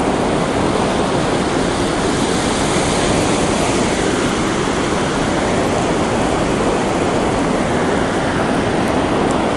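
North Sea surf breaking on the beach: a steady, even rushing of waves.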